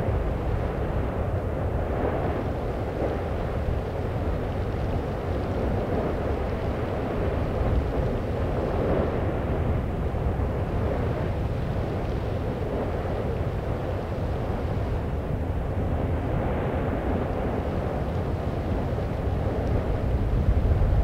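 Volcanic eruption rumbling steadily: an even, low, rushing noise with no distinct bangs or breaks.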